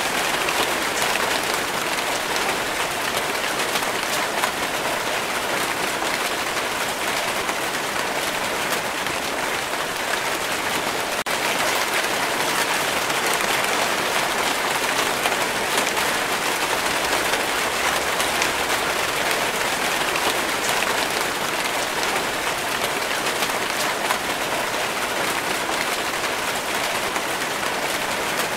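Steady rain falling, a dense, even patter of raindrops with no break or change in strength.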